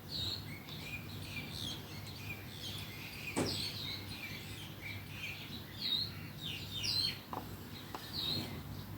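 Small birds chirping many short, quick calls in the background over a low steady hum, with a faint click about three seconds in.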